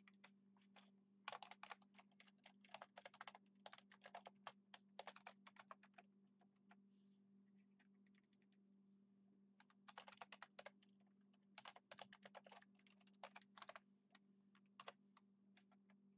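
Faint typing on a computer keyboard, in two bursts of quick keystrokes: one starting about a second in, another around ten seconds in. A low steady hum runs underneath.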